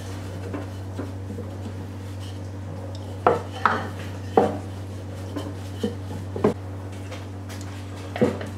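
Kitchen handling noises: a wooden rolling pin rolling out pastry on a wooden board, with several sharp knocks and clatters as the pin is moved and set down. Near the end a metal spoon knocks against the saucepan. A steady low hum runs underneath.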